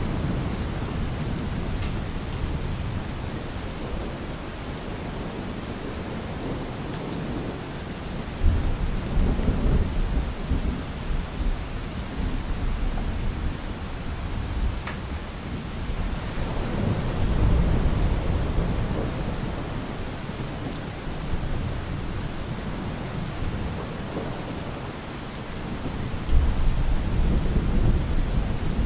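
Steady rain with low rolls of thunder that swell up about a third of the way in, again just past the middle, and near the end.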